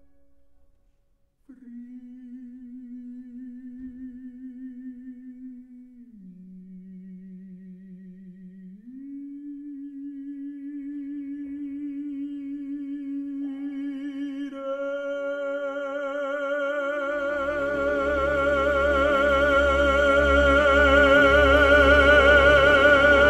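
Modern orchestral music with a baritone voice: the voice holds long notes with vibrato over near-silent accompaniment, drops lower about six seconds in and rises again about three seconds later. The orchestra then swells in behind it into a loud crescendo with deep bass in the last seconds.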